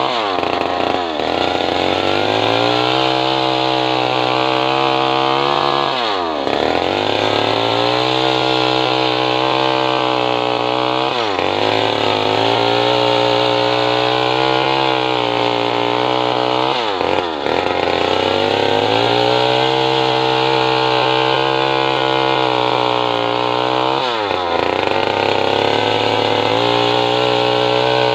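Stihl MS 250 two-stroke chainsaw running at high revs while cutting along a log, the engine pitch dipping briefly and climbing back five times.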